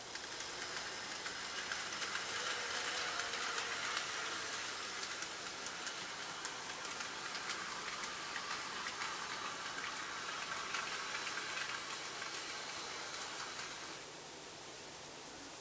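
N gauge model train running along the track: a fine rattling hiss of small wheels on rail with light clicks over the rail joints, which cuts off about fourteen seconds in.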